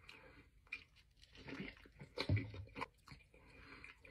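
Faint wet chewing and lip smacks from a mouthful of burrito, with a brief low voice sound about two seconds in.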